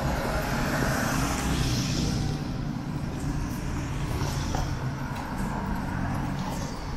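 City street traffic: cars driving past on the road beside the pavement, a steady low rumble with swells of tyre and engine noise as vehicles go by.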